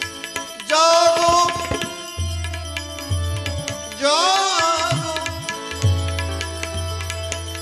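Bhajan music with tabla playing under steady held notes, and two ornamented melodic phrases that glide and waver, one about a second in and one about four seconds in.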